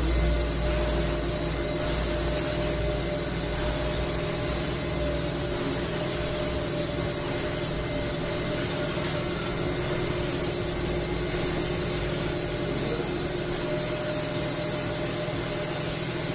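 Carpet extraction machine running steadily, its vacuum motor and pump drawing cleaning solution back up through the floor wand as the wand is worked over the carpet. A constant whine over a hiss, without a break.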